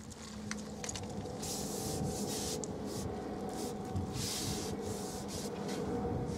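A hooked bream splashing as it is drawn into a landing net, with rustling, in two longer surges about one and a half and four seconds in.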